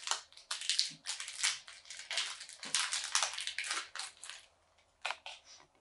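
A MetaZoo trading-card booster pack being torn open and its wrapper crinkled by hand: a dense crackling that thins to a few light rustles about four and a half seconds in.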